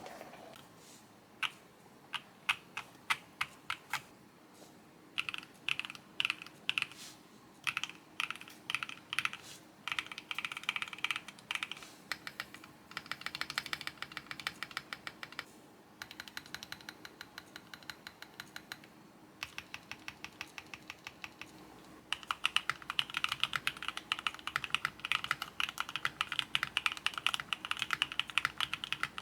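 Typing on a Qwertykeys Neo65 mechanical keyboard with linear switches. A few single key presses about a second in, then bursts of typing, a softer run partway through, and fast continuous typing for the last several seconds.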